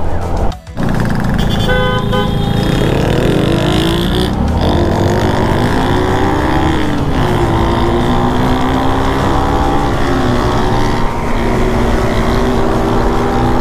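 Yamaha Sniper 150i motorcycle's single-cylinder four-stroke engine running under way over road and wind noise, its pitch climbing as it accelerates, dropping back about halfway through, then holding fairly steady. A vehicle horn beeps briefly about two seconds in, and the sound cuts out for a moment just before that.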